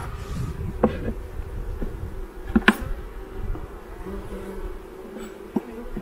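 Honeybee colony buzzing steadily over the open hive box, with a few sharp wooden knocks as the hive tool and frames are handled, the loudest about halfway through.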